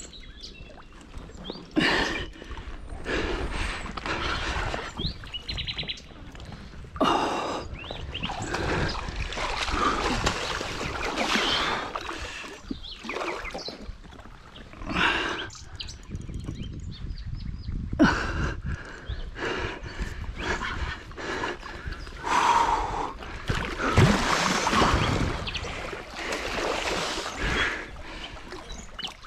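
Water splashing and churning around a float tube in irregular surges, each a second or two long, as a hooked catfish fights close by near the surface.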